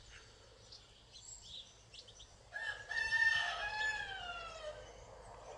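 A rooster crowing once, a single drawn-out call of about two seconds that falls in pitch at the end, with a few faint chirps of small birds before it.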